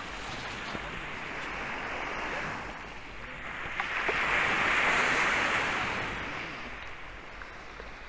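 Sea waves washing onto a sandy beach: a steady rush of surf that swells about four seconds in, then fades.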